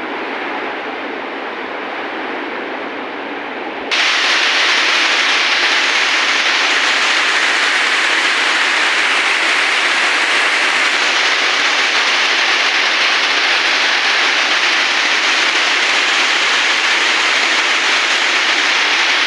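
Heavy rain falling steadily, a dense even hiss. About four seconds in it jumps suddenly louder and brighter, then holds steady.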